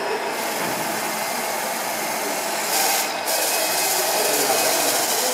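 Small motor of a radio-controlled model truck running, with a steady hiss and a short, louder hiss about two and a half seconds in.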